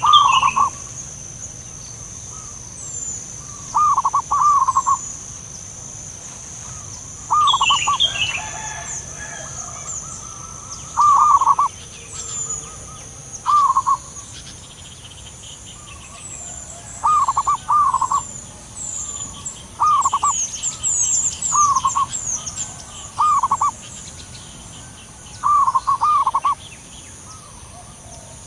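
Zebra doves cooing: short rolling trills, about a dozen in all, coming every two to three seconds, male and female answering each other. Thin high chirps of small birds run above them, busiest about two-thirds of the way through.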